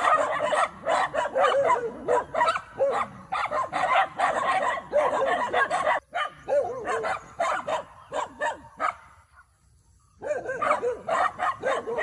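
Several dogs barking at a horse in quick, overlapping barks. The barking thins out about nine seconds in, stops for about a second, then starts again.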